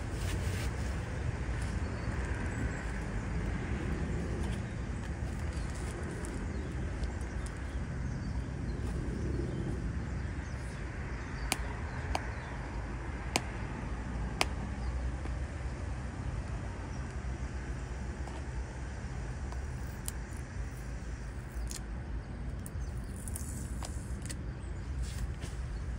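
Steady low outdoor rumble, with four sharp clicks about halfway through as a rigid cardboard gift box is picked up and opened.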